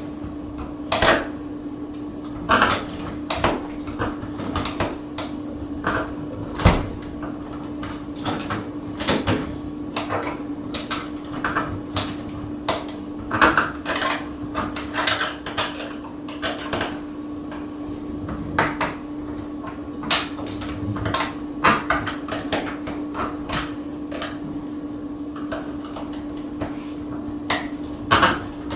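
Irregular clicks, clacks and knocks of a jammed doorknob being worked on: the knob and latch hardware rattled, turned and handled, over a steady hum.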